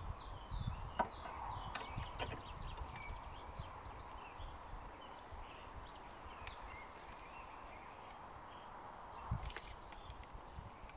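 Small birds chirping at intervals over a faint outdoor background, with a few light clicks and knocks, about one and two seconds in and again near the end.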